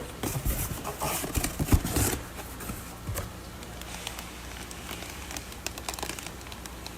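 Handling of a fish shipping box and its plastic fish bags: a quick run of knocks, clicks and rustling for about two seconds, then only scattered light taps.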